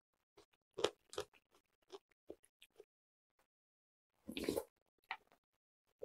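Close-up mouth sounds of eating ulmyeon, a thick, starchy noodle soup: wet chewing clicks, then about four seconds in a short slurp of the soup from a spoon.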